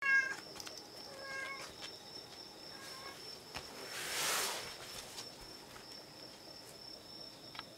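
Cat meowing: a loud short meow right at the start, then two softer short meows about a second and three seconds in. A brief rustling swish comes about four seconds in.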